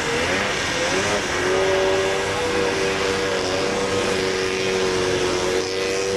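Several small youth snowmobile engines running together, their pitch wavering during the first second or so, then holding a steady drone as the sleds crawl at low speed.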